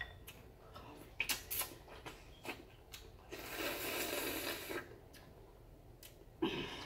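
Crab legs being cracked and broken open by hand, with several sharp shell snaps and clicks, and a longer slurp of juice from the shell in the middle.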